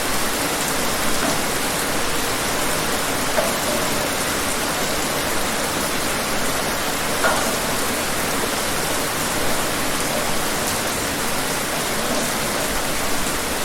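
Steady rain falling outdoors, a constant hiss with occasional louder individual drops.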